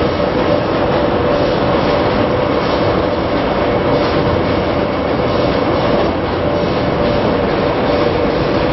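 Hard candy production line machinery running: a steady, dense mechanical din with a constant hum.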